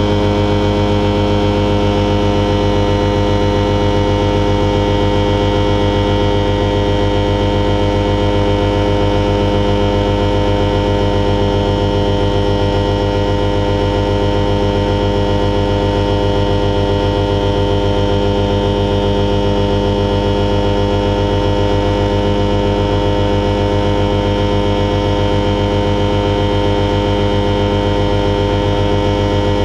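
Alisport Silent-in motorglider's self-launch engine and propeller running at a steady speed under power, heard from inside the cockpit.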